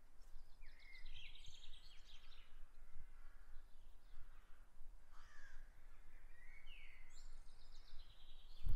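Birds singing and calling: two phrases of rapid repeated notes, the first early and the second near the end, with a few softer calls between. A light low rumble runs underneath, and there is a dull thump near the end.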